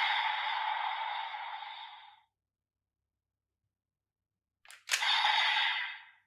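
Kamen Rider Geats DX Desire Driver toy belt playing electronic sound effects through its small speaker: a hissing burst fades out about two seconds in, and after a pause of silence a sharp click is followed by another short burst near the end.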